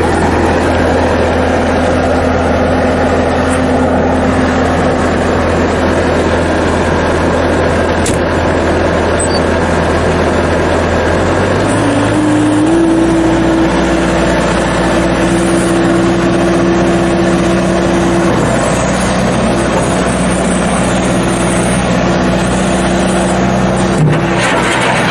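Bobcat T190 skid steer's diesel engine running steadily, its pitch stepping up to a higher engine speed about halfway through and holding there.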